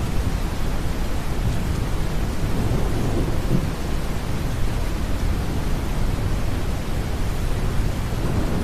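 Deep brown noise mixed with steady rain and a low rumble of distant thunder, an even, unbroken wash weighted to the low end.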